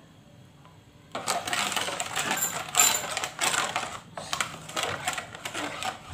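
Silicone spatula stirring a liquid pudding mixture in a stainless steel pot: a steady run of irregular scraping and sloshing strokes against the pot's sides and bottom, with sharp clicks, starting about a second in.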